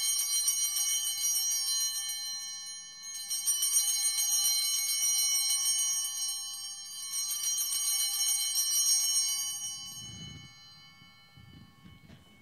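Altar bells rung at the elevation of the chalice during the consecration: three peals about four seconds apart, each ringing on and fading, the last dying away near the end.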